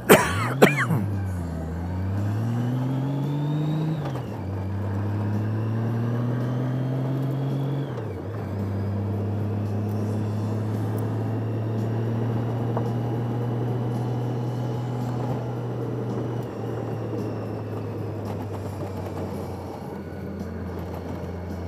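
Motorcycle engine pulling up through the gears, rising in pitch with shifts about 4 and 8 seconds in, then cruising at a steady pitch, with wind rushing past. There is a sharp knock about half a second in.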